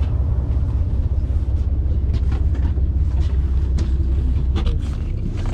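A party boat's engine running with a steady low rumble, with a few faint knocks over it.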